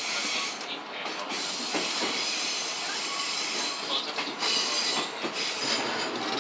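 Running noise of a 227-series electric train heard from behind the driver's cab: wheels knocking irregularly over rail joints and points, with a high-pitched wheel squeal on the curve through the middle.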